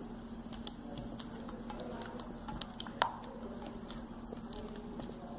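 Silicone spatula stirring thick chocolate ganache in a stainless steel bowl: soft wet squishing with scattered small clicks of the spatula against the metal, and one sharper knock about three seconds in.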